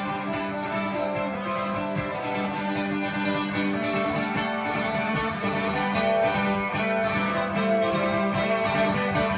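Acoustic guitar and mandolin playing together in an instrumental break of a live song, strummed and picked notes in a steady rhythm with no singing.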